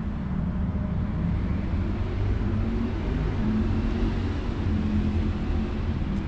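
Steady low rumble of a motor vehicle's engine, a little louder around the middle.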